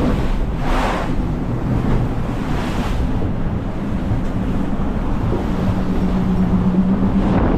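Wind and sea rushing past an Ultim trimaran sailing fast, heard from inside its covered cockpit, with wind buffeting the microphone. A low steady hum underneath grows louder for a couple of seconds near the end.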